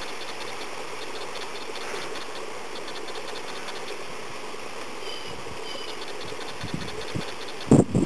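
Steady background hiss and low hum, with two faint short high chirps about five seconds in, then a few dull low thumps near the end, the loudest just before it ends.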